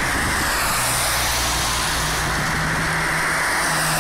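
Steady road-vehicle noise: a low engine hum under a rushing hiss, with no sudden events.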